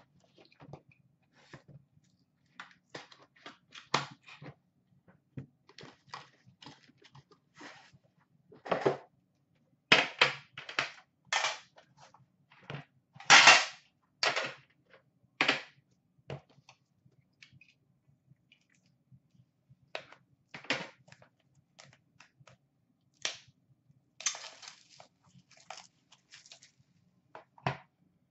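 Irregular clicks, knocks and short rustles of a 2013-14 Upper Deck The Cup hockey card box being unpacked by hand: the cardboard carton and its black inner box handled, opened and set down. The loudest rustling comes about halfway through.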